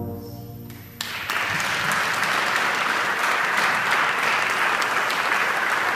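A brass ensemble's last chord fades out, and about a second in the audience breaks into steady applause.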